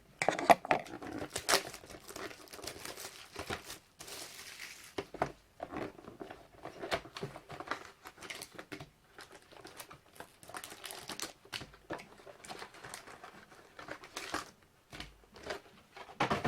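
Crinkling and tearing of the plastic wrap on a factory-sealed Panini Titanium trading-card hobby box as it is unwrapped and opened by hand, in many quick irregular crackles with longer hissy rips.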